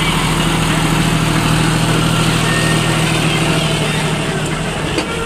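Diesel tractor engine pulling a trolley loaded with sand up a sandy track, running at a steady note that eases in the last second or so.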